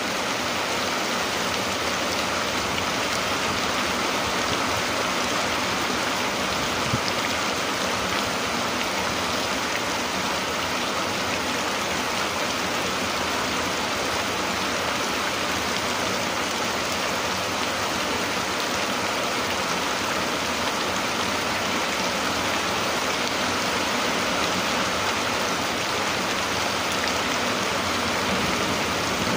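Steady rain falling, an even continuous hiss, with one brief click about seven seconds in.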